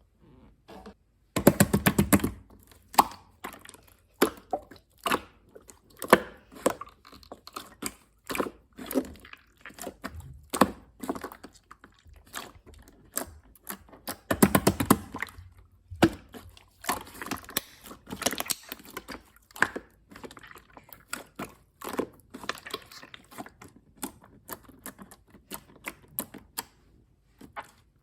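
Clear slime worked by hand, giving an irregular run of sticky clicks and pops, with two dense runs of rapid crackling pops, one near the start and one about halfway through.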